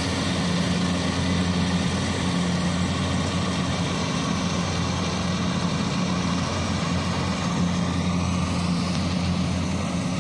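Kubota combine harvester's diesel engine running steadily, with the rattle and rush of its machinery.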